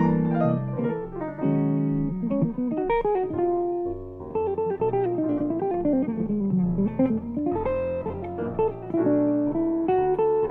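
Jazz guitar solo on a Guthrie archtop guitar: flowing single-note lines that run down in pitch and climb back up, over lower accompanying notes.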